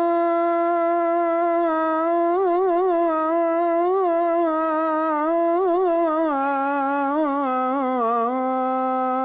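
A muezzin's voice holds one long melismatic note of the Fajr call to prayer. It is the drawn-out vowel of "as-salātu" in the dawn-only line "as-salātu khayrun min an-nawm", with warbling ornaments and a step down in pitch about six seconds in.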